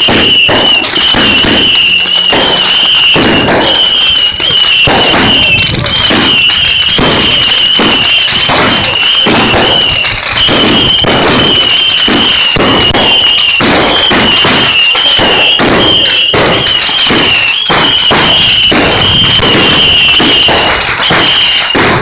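Fireworks and firecrackers going off without pause: a dense, very loud barrage of rapid pops and bangs, with a high warbling whistle running through it.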